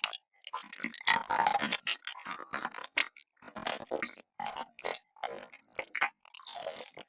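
Close-miked eating sounds: irregular chewing, smacking and crunching noises with short pauses between them.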